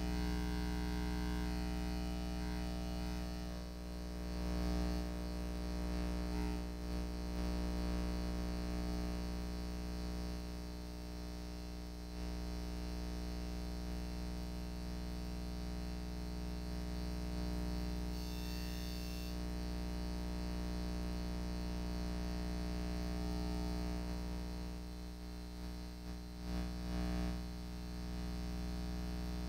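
A steady electrical hum with many overtones, unchanging throughout, with a few brief bumps about five seconds in and again near the end.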